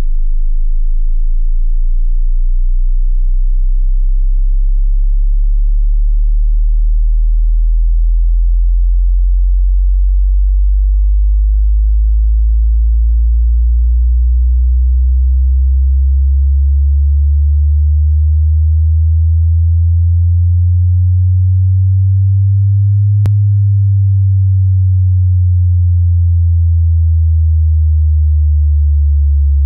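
Pure sine test tones in the deep bass for checking a subwoofer, each held steady and then giving way to a new pitch every few seconds, from about 26 Hz up through 58 Hz to 75 Hz. One faint click a little past two-thirds of the way through.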